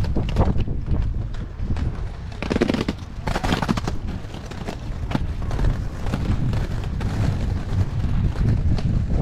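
Inline skate wheels rolling over stone paving with a steady low rumble, scattered sharp clicks and knocks from the skates, and a louder hiss around three seconds in.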